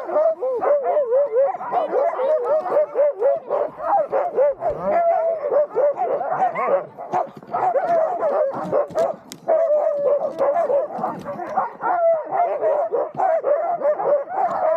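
A team of sled huskies barking, yipping and whining all together without a break, the noise a harnessed team makes at a halt when it is impatient to run on.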